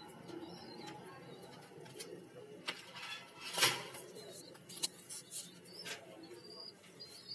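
Domestic pigeons cooing, low coos repeating. A short loud rustle comes about three and a half seconds in, followed by a few sharp clicks.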